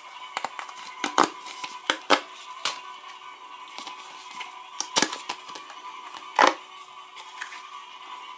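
Paper sticker packet being torn open and the stickers inside pulled out and handled: a string of sharp paper crackles and snaps, loudest about a second in, around two seconds and near six and a half seconds, over a faint steady hum.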